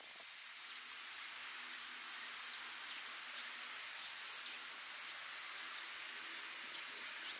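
Steady outdoor ambience: an even high hiss with a few faint, short chirps scattered through it.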